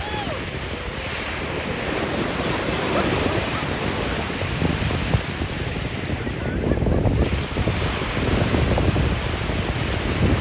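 Sea waves washing and breaking at a beach, with wind buffeting the phone's microphone.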